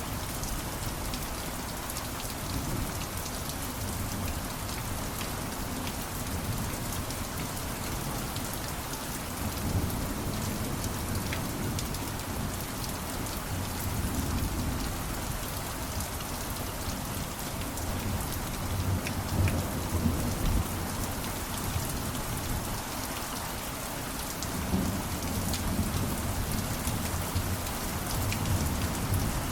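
Steady, dense rainfall with the patter of drops on a surface, and low rumbles of thunder swelling and fading about three times.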